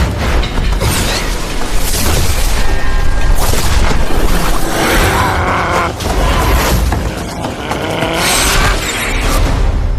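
Fantasy-drama fight soundtrack: dramatic music under loud booming impacts and repeated sweeping bursts of noise.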